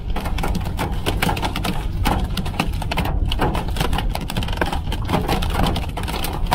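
Good-sized hailstones peppering the roof, sides and glass of an old Jeep, heard from inside the cab. It is a dense, irregular clatter of many small hits that never lets up, over a steady low rumble.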